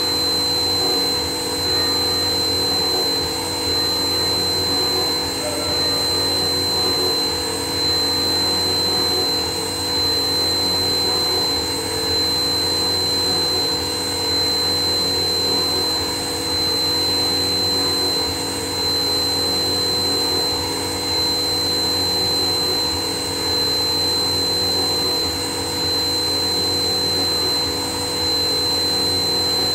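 CNC machine running with a steady high-pitched whine over a motor hum, its loudness dipping slightly every two to three seconds.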